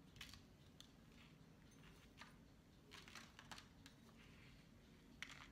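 Faint, scattered light ticks and rustles of rolled oats and seeds being pressed by hand onto shaped bread dough lying on baking paper.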